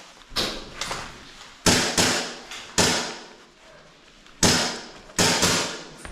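A string of sharp knocks and cracks, about eight at uneven intervals, each ringing briefly off hard walls.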